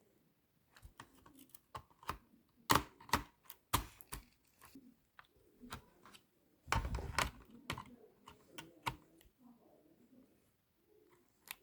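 Irregular clicks and taps from hands working on an HP computer, with a heavier thump about seven seconds in.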